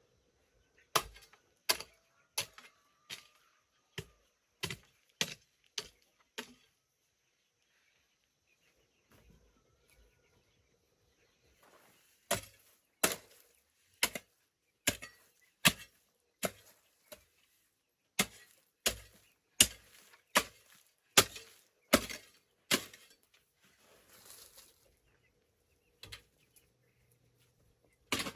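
A hand tool chopping into the ground over and over, about three strikes every two seconds. There are two runs of strikes with a pause of several seconds between them, and one loud strike near the end.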